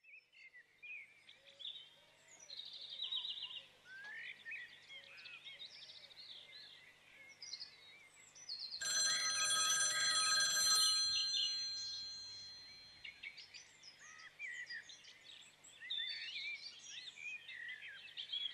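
Small birds chirping and singing faintly throughout. About nine seconds in, a louder bell-like ring of several steady high pitches starts suddenly, holds for about two seconds and dies away.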